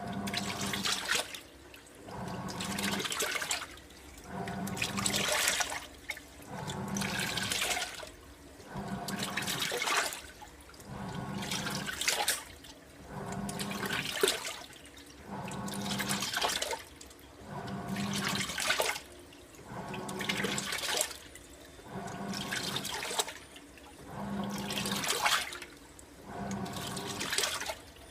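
AQUA MCW-C50 coin-operated top-loading washer in its fill rinse, its pulsator churning the rinse water in surges about every two seconds with a motor hum, pausing briefly between strokes.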